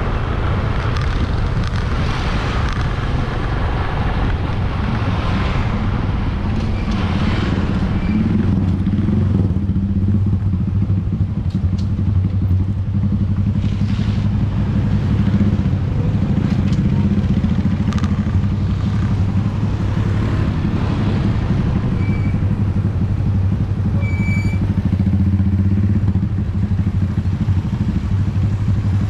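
Honda motorcycle engine running steadily at low speed as it rides along in slow traffic, with wind noise during the first several seconds. A couple of short high beeps come near the end.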